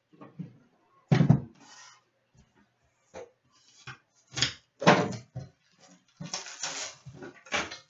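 Knocks and clatters as a shrink-wrapped metal trading-card tin is pulled from a plastic display stand and handled on a counter, the loudest knock about a second in. Near the end comes crinkling as its plastic shrink wrap is torn off.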